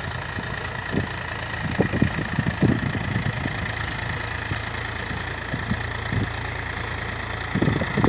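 Powertrac Euro 50 tractor's diesel engine running steadily as it pulls a tine cultivator through dry soil.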